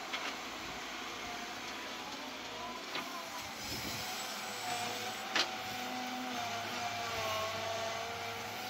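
Hydraulic excavator running steadily while digging, its engine and hydraulics giving a wavering whine, with three sharp clanks as the steel bucket strikes stony ground; the loudest clank comes about five seconds in.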